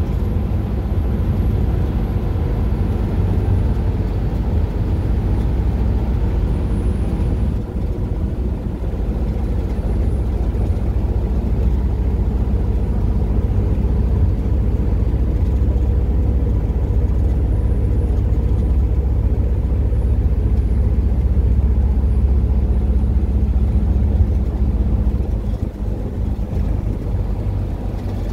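Steady low rumble of a coach bus on the move, heard from inside the passenger cabin: engine drone and road noise, easing slightly for a moment a little before the end.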